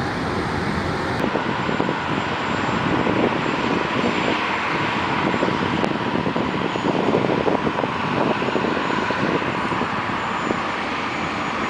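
Steady roar of heavy-haul trucks running with an oversize load, engine noise mixed with road and wind noise, without a break.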